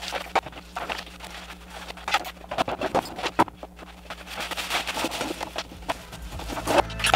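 Irregular clattering and knocking of tools, parts and junk being handled and moved around a workshop, over a steady low hum. Low music comes in near the end.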